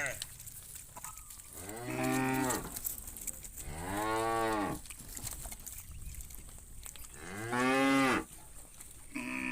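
Cattle mooing: three long moos a few seconds apart, each rising and then falling in pitch, with a fourth beginning near the end.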